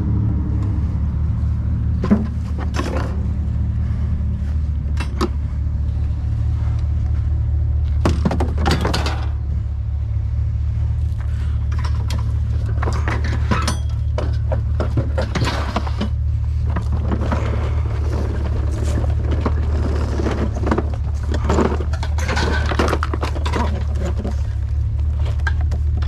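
A vehicle engine idling with a steady low rumble, with intermittent clattering and scraping of junk being handled over it.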